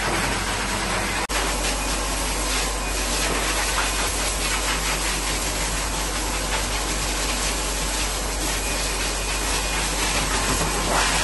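Pet blow dryer blowing a loud, steady stream of air over a wet dog's coat, with a motor hum underneath.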